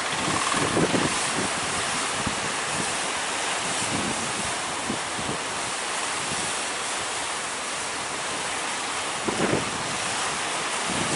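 Heavy sea surf crashing and washing steadily, with wind buffeting the microphone in gusts, strongest near the start and about nine seconds in.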